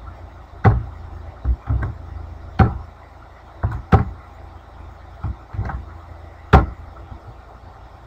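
Computer keyboard keys struck one at a time, about a dozen irregular sharp clicks with uneven gaps, some loud, over a steady low hum.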